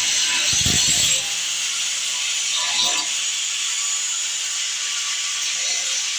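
A power tool cutting into a steel saw blade, giving a steady harsh hiss. A low knock comes about a second in.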